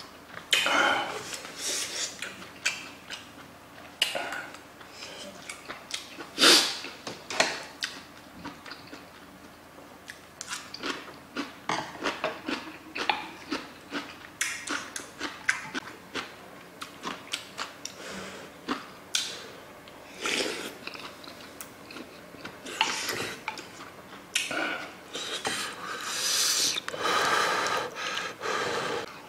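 Close-miked eating sounds of sundae gukbap: a wooden spoon scraping and clacking against the earthenware pot, with chewing and slurping of the hot soup. The clicks and knocks come often and unevenly throughout, with a few longer slurps or breaths near the end.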